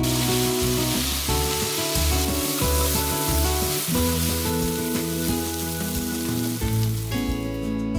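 Gochujang-marinated pork sizzling as it cooks, a steady hiss that stops about seven seconds in, with background music underneath.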